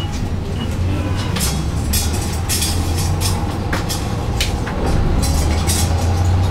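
A trolleybus under way, heard from inside the cabin: a steady low hum from the drive and road, with frequent short clicks and rattles from the body and fittings. It grows a little louder about five seconds in.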